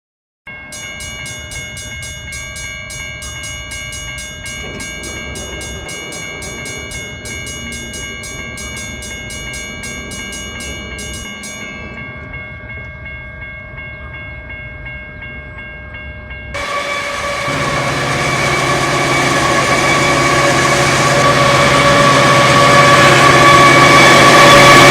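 Union Pacific diesel locomotives' air horn sounding a long, steady chord as the train approaches. About sixteen seconds in it turns suddenly louder and keeps growing as the locomotives draw near.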